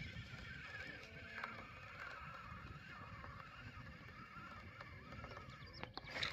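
Spinning reel being cranked, a faint, continuous wavering whir as a lure is retrieved, over a low rumble of wind on the microphone.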